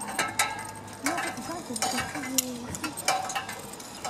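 Irregular light metallic clicks and clinks of climbing-harness hardware: carabiners and lanyard clips knocking together.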